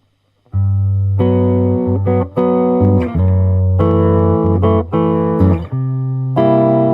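Electric guitar played through its pickups: chords struck and left to ring, changing about once a second with short breaks between them, coming in about half a second in.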